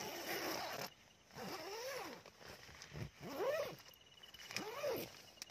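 An animal calling three times, each call a short cry that rises and then falls in pitch, about a second and a half apart, over a faint steady insect trill. A brief rustling hiss fills the first second.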